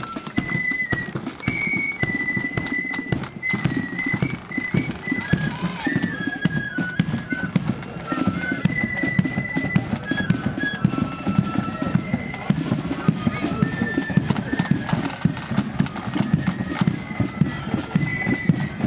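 Marching flute band playing: flutes carry a high stepping melody over a steady beat of drums, the bass drum among them.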